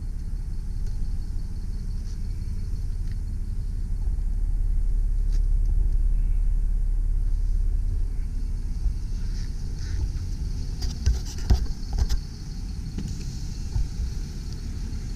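Mercedes ML320 CDI's 3.0-litre V6 turbo diesel idling, a low steady rumble. A higher hiss joins about halfway through, and there are a few knocks toward the end.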